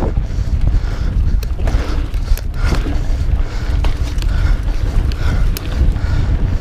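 Mountain bike riding down a dirt trail: wind rumbling steadily on the microphone, the tyres rolling over dirt, and scattered sharp clicks and rattles from the bike over bumps.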